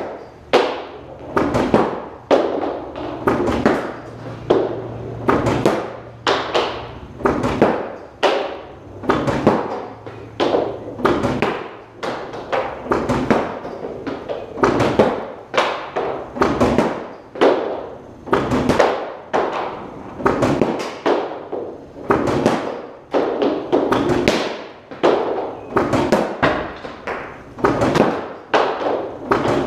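Hockey pucks fired from a puck machine thudding against a goaltender's leg pads, glove and blocker, sharp knocks roughly once a second.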